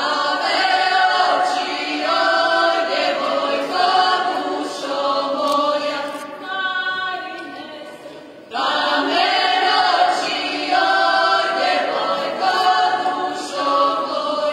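A group of folk dancers singing an unaccompanied Croatian folk song together as they dance, in two sung phrases, the second starting about halfway through after a brief drop.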